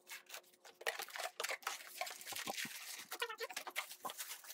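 Cardboard box flaps and clear plastic packing being handled while a carton is opened: irregular rustling, crinkling and scraping.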